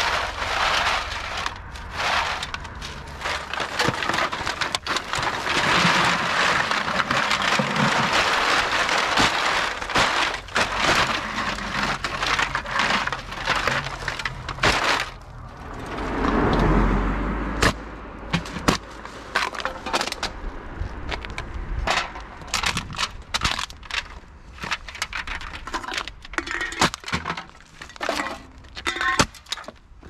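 Empty aluminum beverage cans clattering and rattling against each other and the pavement as they are handled and tipped out in a mass. Partway through there is a short low rumble, after which the cans clink more sparsely as they are moved a few at a time.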